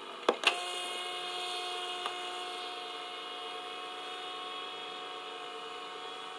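ACV400 RC hovercraft's single small brushed electric motor running with a steady high-pitched whine. Two sharp clicks come just after the start, and a lighter one at about two seconds.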